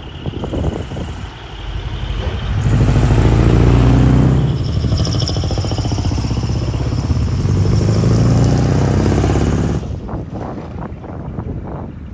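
A decorated truck's diesel engine revving hard as it pulls away and passes, the revs swelling twice with a high whine over them, then cutting off sharply near the end.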